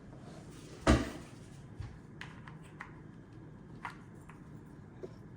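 Packaging and objects being handled: one solid thump about a second in, then a scatter of light clicks and taps.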